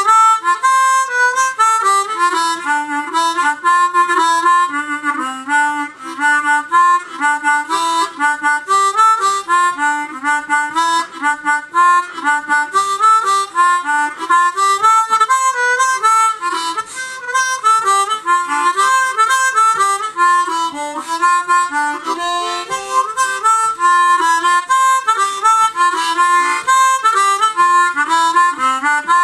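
Hohner student harmonica in the key of C, tuned differently from a standard blues harp, played in a continuous run of quick, short notes, often with two pitches sounding at once.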